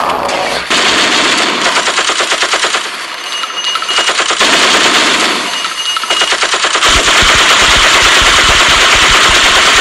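Rapid automatic gunfire sound effects, bursts of machine-gun fire running almost without a break. From about seven seconds in the firing becomes heavier, with deep rapid thuds.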